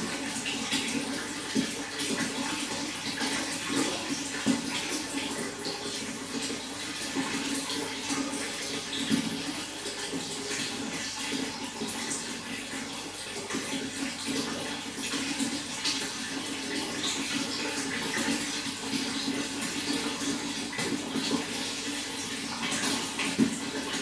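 Running water, a steady rush with frequent brief louder spikes.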